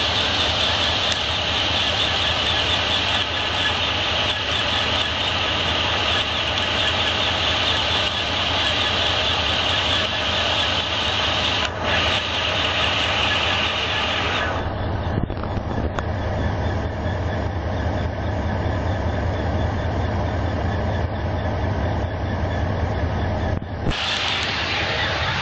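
2007 Chevrolet Monte Carlo SS's V8 running at idle with a steady, loud, high-pitched noise over the low engine hum: the strange noise the owner hears only in Neutral and Park and cannot trace. About fourteen seconds in, the high noise drops away, and it comes back near the end.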